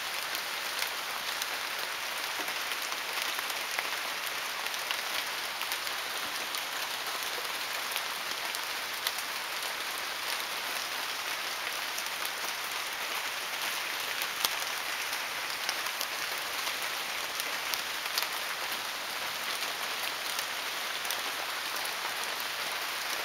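Steady heavy rain falling, an even hiss with many scattered sharp drop impacts.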